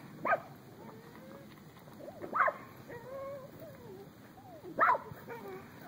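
An animal whining, with three short calls sweeping up in pitch about two seconds apart.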